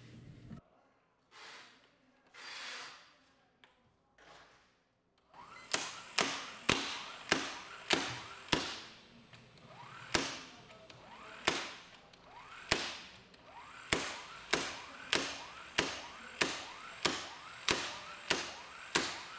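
12-volt egg-beater-style impact wrench, powered from a cigarette-lighter socket, hammering a fastener on a torque tester. After a few soft whooshes, slow, evenly spaced sharp blows set in about five seconds in, one to two a second, each fading before the next.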